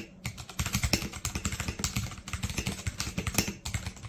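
Fast typing on a stock, unmodified Royal Kludge RK84 mechanical keyboard, a quick run of many key clicks a second as a sound test of its stock switches.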